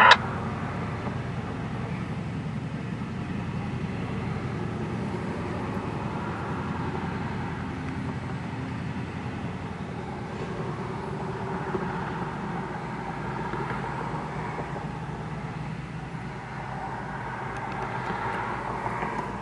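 Diesel freight locomotive running steadily as it moves slowly through a rail yard pulling freight cars.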